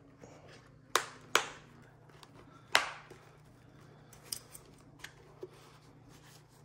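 Plastic clips of a Shoei Neotec II helmet's interior liner being pushed and snapped into the shell: three sharp clicks within the first three seconds, then a few fainter clicks.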